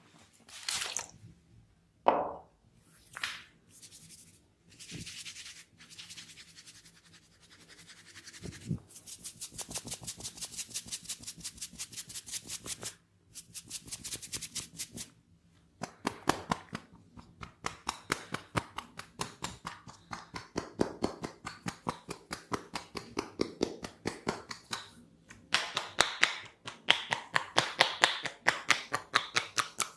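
Hands massaging a person's oiled head and hair: a few soft brushing swishes, then fast, even strokes of about ten a second that run on with short breaks.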